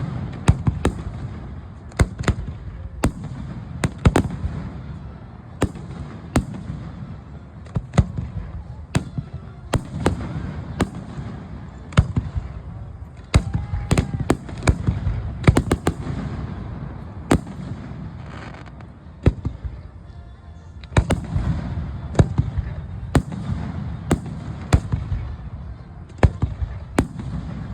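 Fireworks display: a dense, irregular string of sharp cracks and booms from aerial shells bursting, often several a second, over a continuous low rumble. The bursts thin out briefly about two-thirds of the way through.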